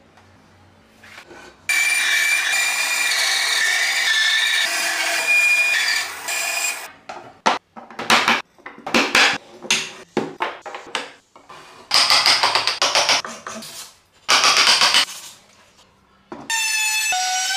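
Woodworking shop sounds in quick succession: a power tool cutting wood steadily for about five seconds, then a string of short rasping strokes and bursts as the wood is worked, and a falling tone near the end.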